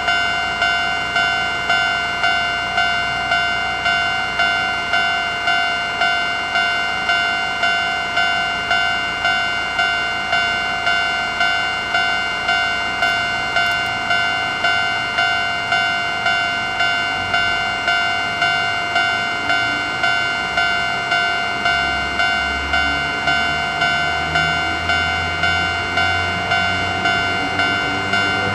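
Railway level-crossing warning bell ringing steadily, about two ringing electronic strikes a second. A low train rumble comes in underneath in the second half and grows louder near the end.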